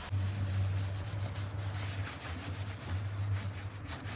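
A cloth wiping and rubbing over the wooden side of a dresser, degreasing it with alcohol, as a string of soft, irregular strokes. A steady low hum runs underneath.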